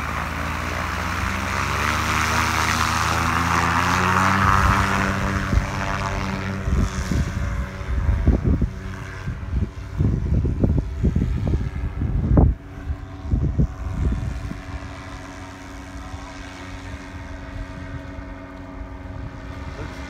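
Paramotor engine and propeller running at full power on takeoff, the drone loud at first and then fading as the craft climbs away. Wind gusts buffet the microphone with irregular low thumps through the middle.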